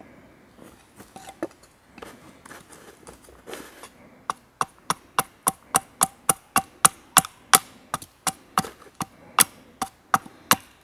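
Small axe chopping down the edge of a green birch spatula blank braced on a chopping block. A few light, scattered taps come first; about four seconds in, a fast, even run of sharp chops begins, nearly four a second.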